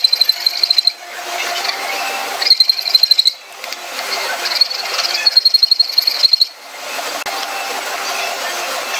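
Steel file rasping across a hardwood block in a vise, in bursts of fast chattering strokes with a high squeal. The filing stops about six and a half seconds in, leaving a quieter steady sound.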